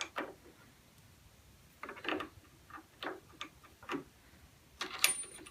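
Light metallic clicks and taps, scattered and irregular, as small steel parts of an Atlas lathe's tumbler gear assembly are handled and fitted onto the gearbox. A small cluster of taps comes about two seconds in, and another near the end.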